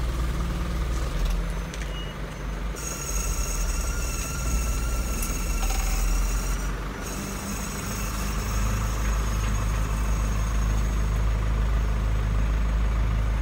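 Truck engine running at low speed, heard from inside the cab as the truck rolls slowly along. A faint steady high whine joins about three seconds in.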